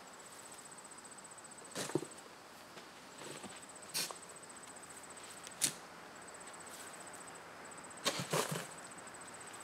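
A few short knocks and scrapes as composted horse manure is dug out by hand and tossed into a plastic cooler. The last ones come in a quick cluster near the end. Behind them a cricket trills high and steady in short stretches that stop and start.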